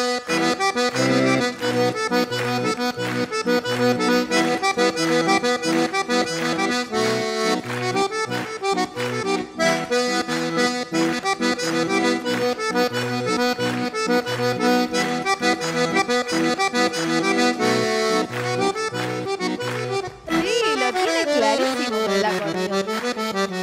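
Button accordion played solo: a lively tune over a steady, alternating bass-and-chord beat. About twenty seconds in the playing breaks off briefly, then comes back with a sliding tone that falls and then rises again.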